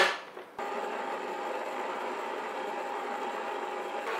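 A knock, then about half a second in a stand mixer's motor switches on and runs steadily with a thin whine, driving a dough hook through flour and egg to knead bread dough.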